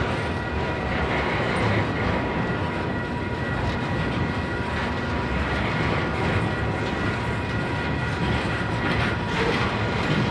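Double-stack container train's well cars rolling past at speed: a steady rumble of steel wheels on the rails, with a thin, steady high ring running through it.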